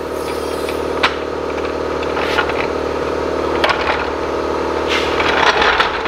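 Red hydraulic floor jack being lowered and pulled out from under a garden tractor's front axle, giving a few metal clanks and rattles, busiest near the end. A steady hum runs underneath.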